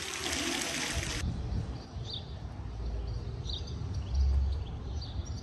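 Fountain water splashing that cuts off suddenly about a second in. Then a small bird chirps a few times over a low rumble, which is loudest about four seconds in.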